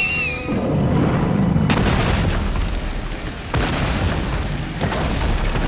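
A series of explosions going off one after another, each a boom that trails off in a long rumble, with new blasts at about a second and a half in, past the middle, and near the end.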